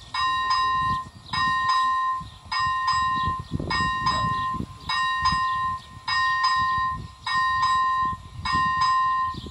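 Czech ZV 01 level-crossing warning bell ringing in an even rhythm, one clear high ding a little more often than once a second. A low rumbling noise runs underneath and is strongest about four seconds in.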